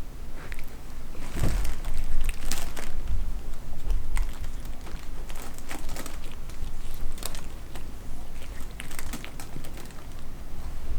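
Kittens and a cat scuffling about at play: scattered light thumps, scratches and rustles at an uneven pace.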